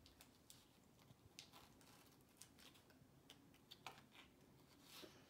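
Near silence with faint, scattered small clicks and crinkles: fingers picking at the sealed plastic pouch of an MRE kippered beef snack, trying to tear it open.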